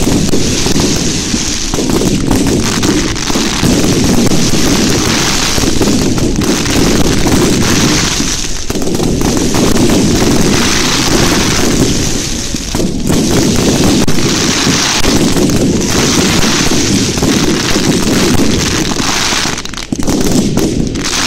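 Fireworks display in a dense barrage: a loud, unbroken mass of bangs and crackling bursts that eases only briefly a few times.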